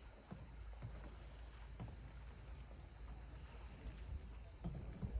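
A small bird singing faintly: a few short, high whistled notes at varying pitch, then a quick, even run of high notes, about four a second. A low rumble runs underneath.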